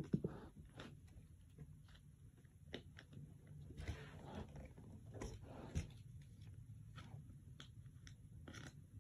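Faint handling noises as card binders are moved about: scattered light knocks and clicks, with a brief stretch of rustling about four seconds in and another about five and a half seconds in.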